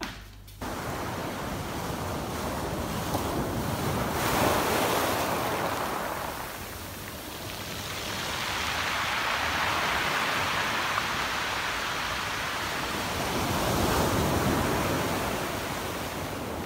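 Sea waves breaking and washing up a pebble beach, the surf swelling three times about five seconds apart, with wind on the microphone.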